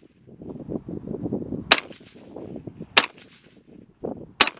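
Three suppressed .45 ACP pistol shots from a Glock 21 fitted with an Osprey 45 suppressor, spaced about a second and a quarter apart. Each is a sharp crack with a short tail.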